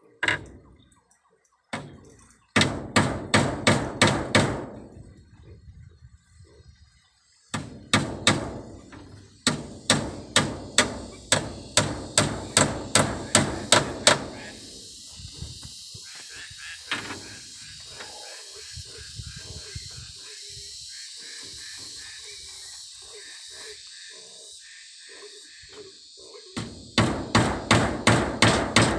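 Hammer striking split bamboo slats fixed onto a wooden frame, in quick runs of about three blows a second with pauses between. About halfway through, a steady high insect buzz starts and carries on under the later hammering.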